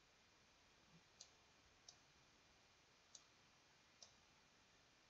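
Four faint, sharp computer mouse clicks, roughly a second apart, over a low steady hiss.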